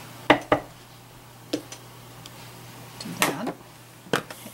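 Wooden-block rubber stamp being tapped on an ink pad and pressed onto card stock: a few short sharp knocks, two close together near the start, one about a second and a half in, a small cluster around three seconds and one more near the end.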